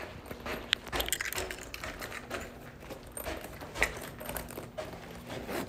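Handling noise from a phone being carried: irregular small clicks and rustling, with a few light knocks.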